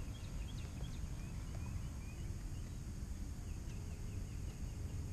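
Birds chirping in short, quick calls, a few each second, over a steady low rumble.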